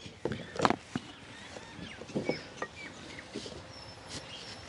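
Scattered light clicks and knocks of metal chainsaw parts being handled as the chain and guide bar are fitted, with birds chirping in the background.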